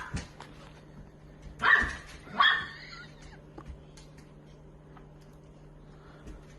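A dog barking: one bark right at the start, then two loud barks close together about two seconds in, followed by faint clicks and knocks.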